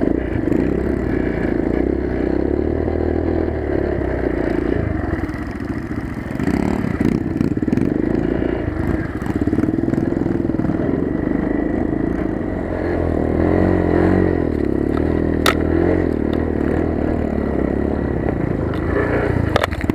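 Motoland XR 250 enduro motorcycle's single-cylinder four-stroke engine running under way on snow, its pitch rising and falling with the throttle, with clatter from the bike over rough ground and one sharp click about three-quarters of the way in.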